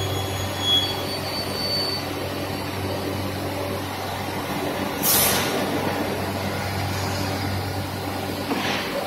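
Cosmec Conquest CNC nesting router running with a steady mechanical hum. A short burst of hissing air comes about five seconds in, and a weaker one near the end.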